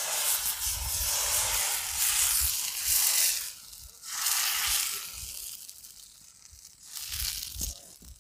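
Thin rice batter for saru chakuli sizzling on a hot iron kadai as it is spread, hissing in three surges: a long one, a shorter one about four seconds in and a brief one near the end.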